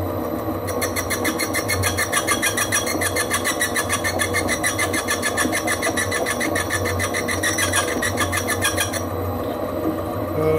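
Holbrook C8 lathe running with a steady hum. From about a second in until about a second before the end, a fast, even mechanical clicking rides over it while a cut is taken, then stops.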